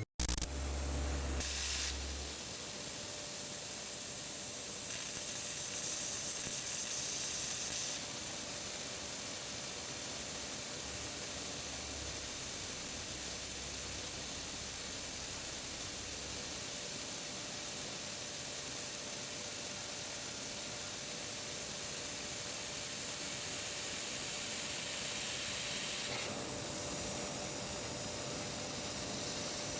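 Laser cutting machine with an 8 kW source cutting 25 mm carbon steel: a steady hiss from the gas jet and the cut, with a faint steady whine under it and a low hum in the first two seconds.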